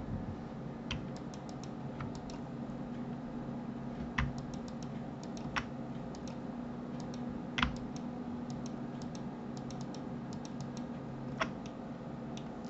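Computer mouse clicks and key presses while working at a computer: scattered sharp clicks, some in quick runs of several, with a few louder ones, over a steady low hum.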